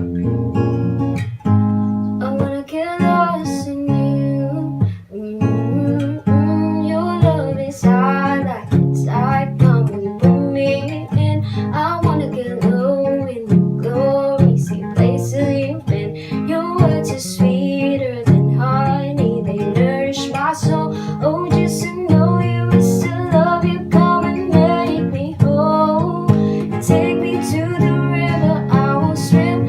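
Music: a song with acoustic guitar strumming and a woman singing.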